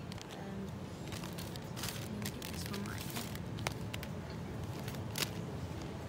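Supermarket background noise: a steady low hum with indistinct voices, and scattered sharp clicks and crinkles as a boxed sandwich wrap is picked off the shelf and handled.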